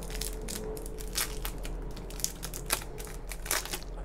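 Thin clear plastic sleeve crinkling and crackling in irregular bursts as it is worked off a small speaker by hand.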